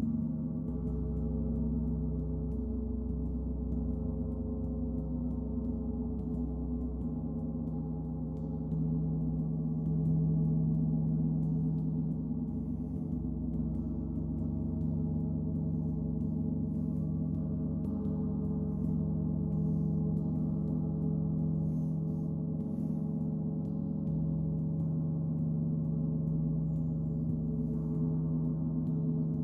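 Gong played as a continuous sound-bath wash: many overlapping low tones ringing on without a break, swelling slightly about a third of the way in.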